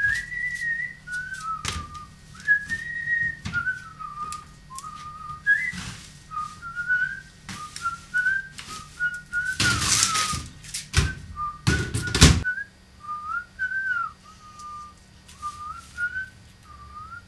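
A person whistling a wandering tune in short phrases, one clear note sliding up and down. A few knocks run under it, with two louder bursts of noise about ten and twelve seconds in.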